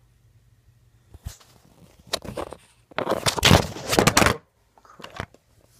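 Handling noise close to the microphone: a click, a few knocks, then about a second and a half of loud rubbing and knocking from about three seconds in, as the steelbook case and its contents are handled.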